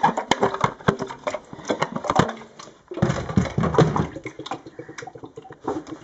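Irregular plastic knocks, clicks and rattles as the filled water tank of a Vicks cool mist humidifier is handled and seated onto its base.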